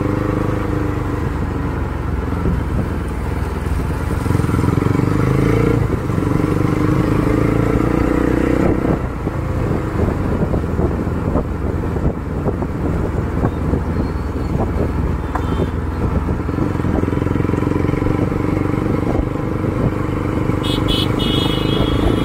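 Bajaj Pulsar NS200's single-cylinder engine running through a custom aftermarket exhaust while riding slowly, with a full, bassy note. The revs rise a few seconds in, then the sound turns rough and crackly for several seconds before settling back to steady running.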